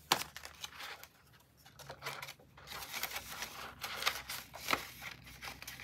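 Paper banknotes rustling and a clear plastic binder pocket crinkling as bills are slid in and pages turned: scattered short rustles and clicks with quiet gaps between them.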